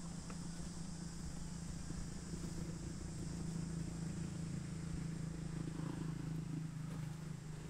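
A motor running steadily, heard as a low hum that grows a little louder in the middle, over a faint high hiss.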